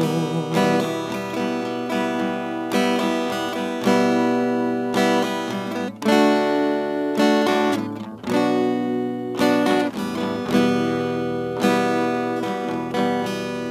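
Instrumental passage between sung verses of an Arabic devotional song: strummed acoustic guitar chords, with two brief dips about six and eight seconds in.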